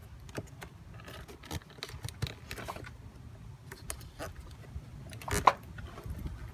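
Scattered small plastic clicks and ticks of an electrical connector being pinched and worked by hand on a truck's evap purge solenoid, which does not come free easily. One sharper click comes about five seconds in, over a low steady rumble.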